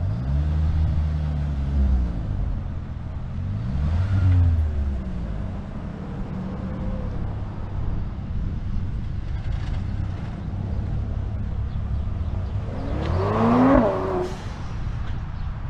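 Manual-transmission car engine running, revved up during hill-start attempts. The pitch rises briefly at the start and again about four seconds in, with a stronger, louder rev near the end, and the engine runs steadily in between.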